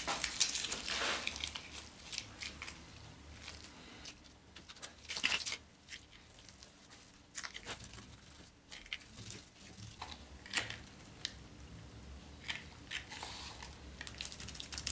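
Brush dabbing polyester resin into chopped strand fibreglass mat and hands working the mat: irregular soft crackles and rustles as the mat is wetted out.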